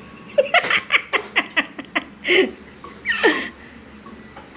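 A person laughing: a quick run of short breathy bursts, about five a second, then two more short laughs, the last falling in pitch.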